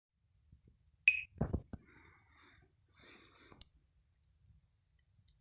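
Alcatel Pixi 3 (4) smartphone playing a ringtone preview through its small speaker: a short high beep and a thump from the phone being tapped, then about two seconds of a high warbling melody in two phrases that cuts off with a click.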